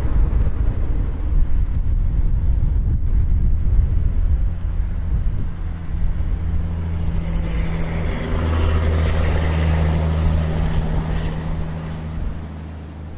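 A motor vehicle's engine running with a steady low hum, and road noise that swells about eight seconds in and eases near the end.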